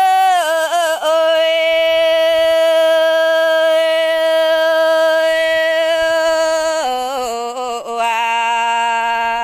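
A woman singing a Red Dao folk song (lượn) in the Dao language, a single voice with no accompaniment. After a few short bending notes she holds one long, steady note for about six seconds, then steps down to a lower held note near the end.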